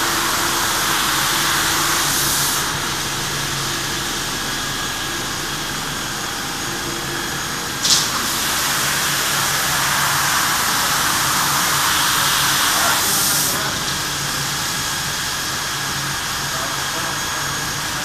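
Automatic carpet washing machine (Hanta AMP-02) at work: a steady hiss of water spraying onto a wet rug under the moving washing carriage, over a low motor hum. The spray swells louder at the start and again about ten seconds in, and there is one short sharp clank about eight seconds in.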